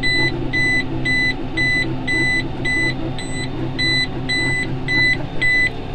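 Baler control terminal in the tractor cab sounding an alarm: a rapid string of short, identical high beeps, about three a second, that stops near the end. It signals a baler fault, here the net wrap failing to go on. The John Deere 7730 tractor's engine runs steadily underneath.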